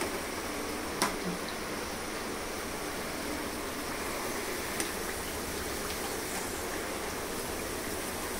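Buckwheat-flour (kuttu) pakoras deep-frying in hot refined oil in a kadhai: a steady sizzle, with a sharp tap about a second in and a fainter one near five seconds.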